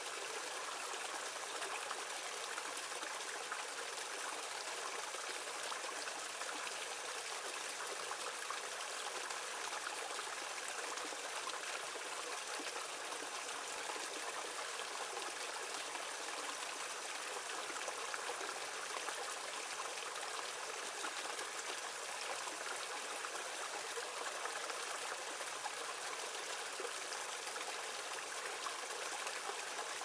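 Small rocky stream splashing and trickling over stones in a short cascade into a shallow pool: a steady, even rush of water, light in the bass, with no breaks.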